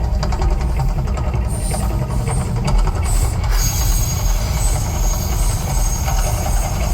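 Deep, steady rumbling from the Mirage volcano eruption show, with a faint high steady tone joining about halfway through.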